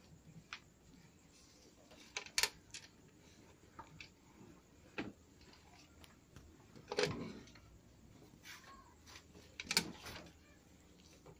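Faint, scattered clicks and knocks from a JCK cut-off machine being handled while its motor is off, with a few sharper knocks about two, seven and ten seconds in.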